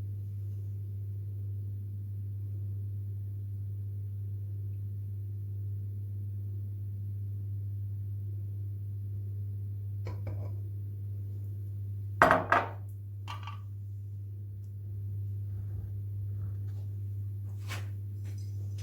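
Kitchenware being handled: a few scattered clinks and knocks, with the loudest clatter about twelve seconds in. A steady low hum runs underneath.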